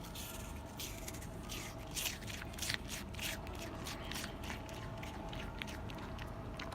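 Red panda biting and chewing apple: a run of crisp, wet crunches, thickest in the first half, over a faint steady hum.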